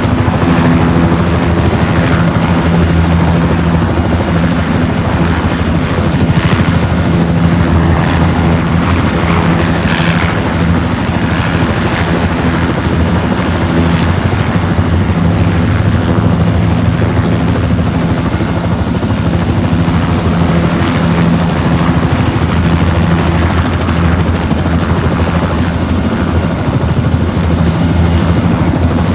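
Helicopter running, a steady low drone of rotor and engine that holds at a constant level.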